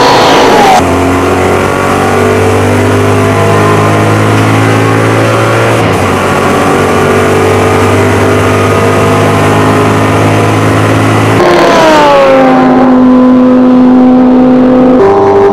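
Maserati GranTurismo MC race car's V8 engine running hard on track, its pitch climbing slowly and steadily for most of the time. About twelve seconds in the pitch falls sharply, then holds steady.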